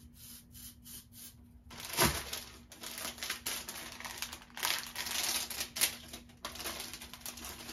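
Rustling and crinkling of a durag's fabric as it is pulled on and its ties are drawn round and knotted at the back of the head. It comes as a run of uneven scrapes and rubs, starting with a sharp one about two seconds in.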